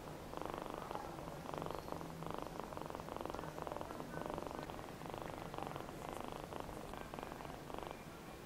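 Ginger-and-white kitten purring steadily while being stroked, the purr swelling and fading with each breath about twice a second: a relaxed, contented kitten.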